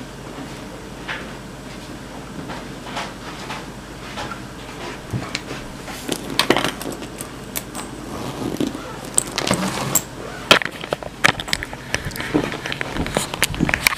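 Close handling noise: rustling, clicks and knocks of bags and belongings being moved, growing dense about halfway through, with the camera itself being handled. A faint steady hum sits underneath.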